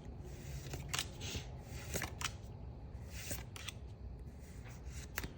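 Pokémon trading cards being handled and slid past one another: faint rustles of card stock with a few light clicks.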